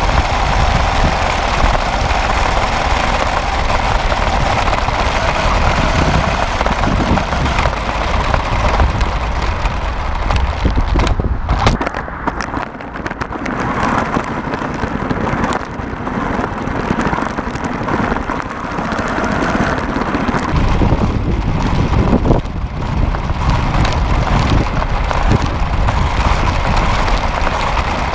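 Road and wind noise from a vehicle driving on asphalt, heard through a GoPro action camera's microphone mounted just above the road: a steady heavy rumble with a rushing hiss that eases briefly about twelve seconds in.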